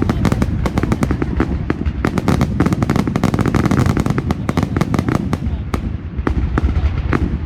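Fireworks going off in a dense, rapid barrage: many sharp cracks and bangs a second over a low rumble, really loud.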